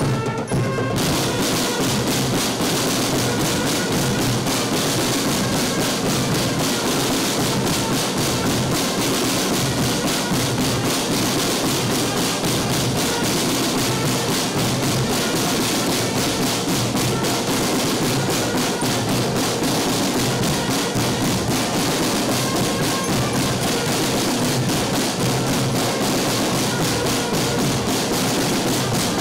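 Marching band drumline playing a continuous drum cadence on marching drums, dense rapid stick strokes without a break.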